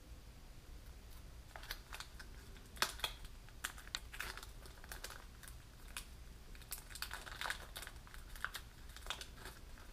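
Small clear plastic zip-lock bag crinkling as it is handled and opened by hand, a run of irregular crackles.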